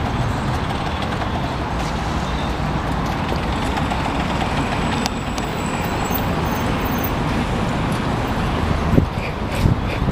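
Steady outdoor street noise, a low traffic-like rumble, with a few short knocks near the end.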